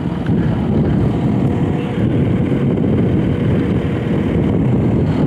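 An engine idling steadily with a loud low rumble.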